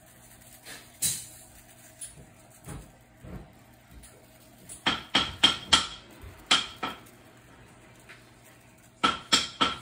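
Lawry's Seasoned Salt shaker being shaken over raw chicken drumsticks, making sharp tapping clicks. Most come in quick runs of three or four, with single taps between.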